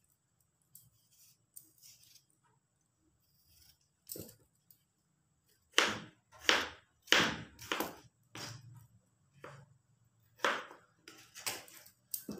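A kitchen knife chopping cucumber against a plastic cutting board: a few faint taps at first, then a run of sharp chops from about halfway through, the loudest ones close together and the rest more spaced out.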